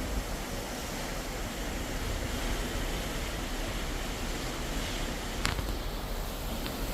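Steady rushing of the open sea and wind heard from a cruise ship's deck, with a brief click a little past five seconds in.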